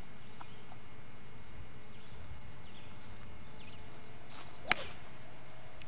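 A golf club swishing through a swing and striking a ball off the tee with one sharp click, about three-quarters of the way in.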